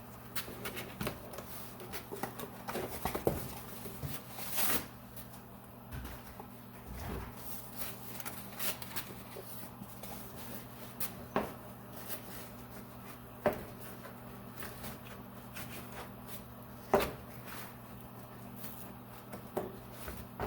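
Rustling, clicks and scattered knocks of protective covering being cut and tucked in around a Jeep's front end to shield the paint from welding sparks, with a few sharper knocks, the loudest about two-thirds of the way through, over a steady low electrical hum.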